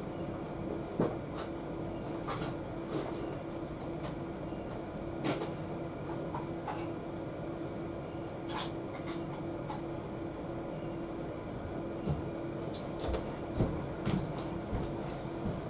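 Scattered knocks and clicks of someone rummaging for spare batteries, over a steady hiss with a low hum.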